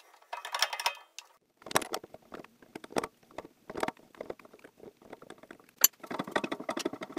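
Scattered metallic clicks, taps and clinks of hands working a drill press chuck to change the drill bit. A single sharp click about six seconds in is the loudest.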